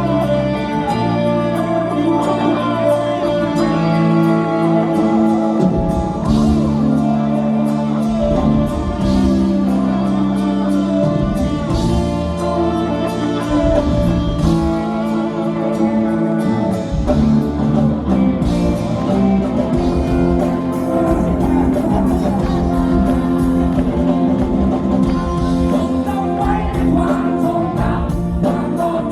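Live rock band playing a song with a sung lead vocal, guitar and a steady drum beat, loud and even throughout.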